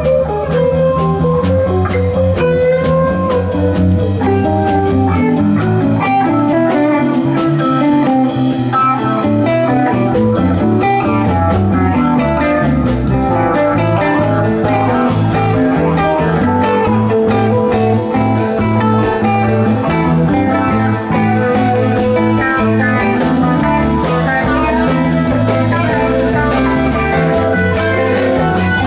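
Live rock band playing an instrumental passage without vocals: electric guitar lines over electric bass.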